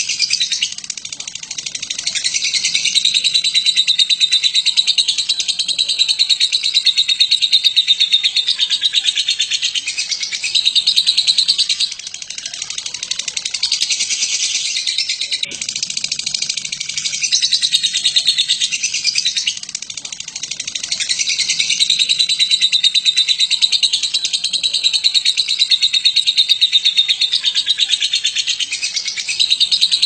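Batman-mutation lovebird singing its 'ngekek' song: a long, rapid, high-pitched chattering trill, kept up in long stretches with a few short pauses.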